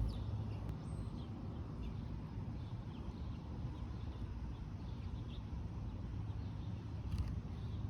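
Faint, scattered bird chirps over a low steady background rumble, with a single click near the end.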